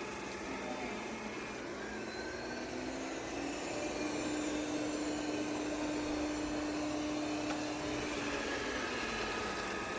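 Yeedi M12 PRO+ robot vacuum running with a steady motor hum, its pitch rising about three seconds in and dropping back near the end.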